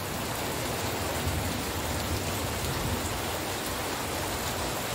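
Steady rain falling on the ground and vegetation, an even hiss without breaks.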